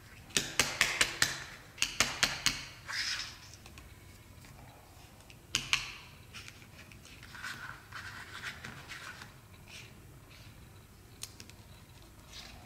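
Handling noise from plastic fashion dolls being moved by hand: quick runs of sharp plastic clicks and taps near the start, then a brief rustle, a few scattered clicks and a soft scratchy rustle.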